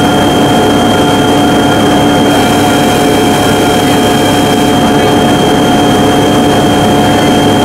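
Sakpattana SS-200 mini combine harvester running steadily at close range: its engine and machinery keep up a loud, even drone with a steady high whine over it.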